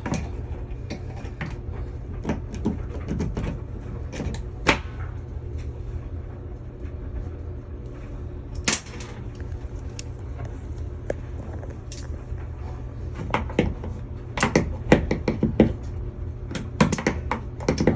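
Needle-nose pliers clicking and scraping on the head of a screw in a wire-shelf wall anchor, in scattered sharp clicks that come thicker near the end, over a steady low rumble.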